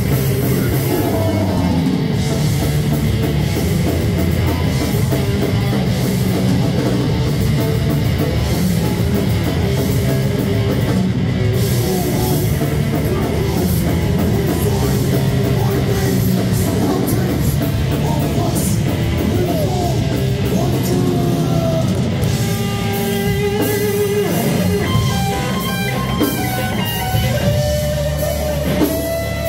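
Live heavy metal band playing loud, dense distorted electric guitars, bass guitar and drum kit. Over the last few seconds the playing thins and single held guitar notes stand out.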